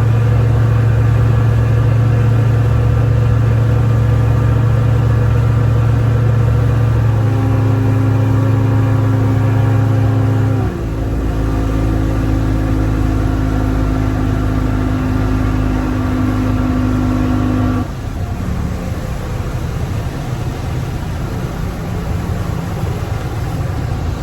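Boat engine running under way with a steady drone. A little over ten seconds in, its pitch steps down and it gets quieter, and near eighteen seconds the even drone gives way to a lower, rougher sound.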